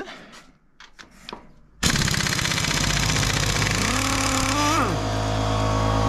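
Pneumatic impact wrench hammering on the swingarm pivot nut to loosen it. It starts suddenly about two seconds in, its pitch climbs as the nut breaks free, then it drops away near five seconds, leaving a steady machine hum.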